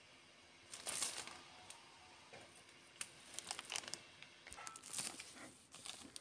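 Faint crinkling of plastic in a few short bursts, as a remote control wrapped in a clear plastic cover is handled.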